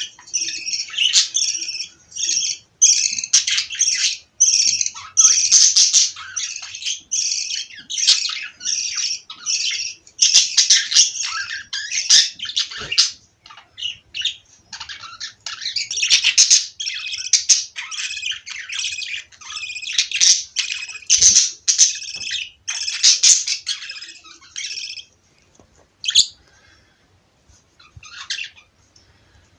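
Budgerigars chirping and chattering in quick, overlapping high-pitched calls, thinning to a few scattered calls near the end.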